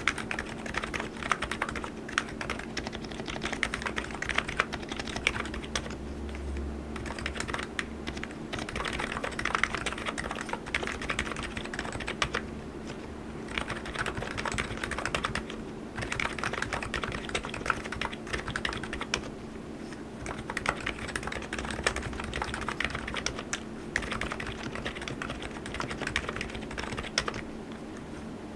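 Steady, fast typing on an ABKO KN02C electrostatic-capacitive (Topre-style) keyboard: a dense run of keystrokes with a few brief pauses, over a faint steady hum.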